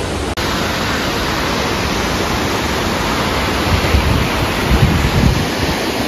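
Steady rushing roar of the Salto São Francisco waterfall, a 196 m drop, heard from near its base, with a few low gusts of wind buffeting the microphone partway through.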